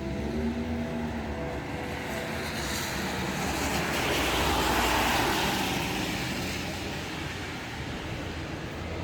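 A vehicle passing by outside: a broad whooshing noise that swells to a peak about halfway through, then fades away.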